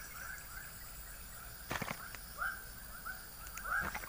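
An animal calling: a run of short, clipped notes, each rising and then falling, repeating about four times a second with a brief pause midway. Sharp clicks come about two seconds in and again near the end.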